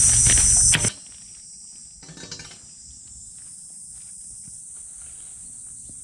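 A loud steady noise cuts off abruptly about a second in. What remains is a faint, steady, high-pitched buzzing of summer insects, with a short rustle of cut grass being raked about two seconds in.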